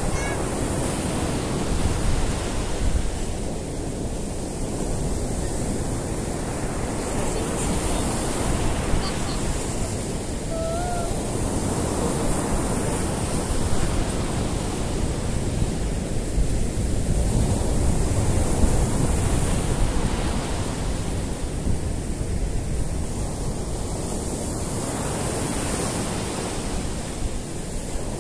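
Rough sea surf breaking on a sandy beach: a steady roar of surf that swells every five or six seconds as each wave breaks and washes up the sand.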